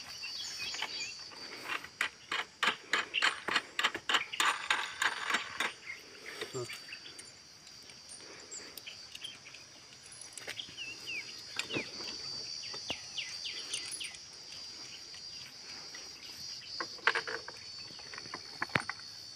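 Insects keep up a steady high drone. A quick run of sharp clicks and rustles fills the first six seconds, and short bird chirps come in around the middle.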